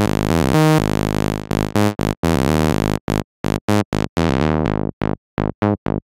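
Synth bass from a Serum patch playing a repeating tech-house bass line. As a macro knob is turned down, the notes change from long, held and bright to short, clipped plucks whose top end is filtered away.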